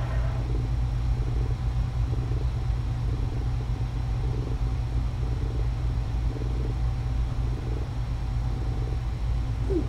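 A cat purring while it is stroked: a low, steady purr that swells and fades about once a second with its breathing.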